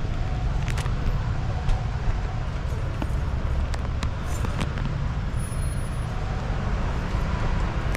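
Street traffic: a steady rumble of motor vehicles on the road close by, with a few short light clicks over it.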